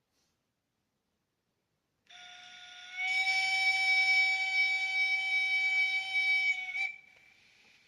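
Sound decoder of a Minitrix N-scale Prussian P8 steam locomotive model sounding its steam whistle: a steady whistle with several tones starts softly about two seconds in, grows loud a second later, holds for about four seconds and cuts off sharply, leaving a faint steady hiss.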